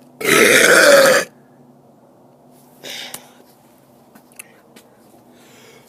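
A man's loud burp lasting about a second, its pitch wavering. A short, much fainter sound follows about three seconds in.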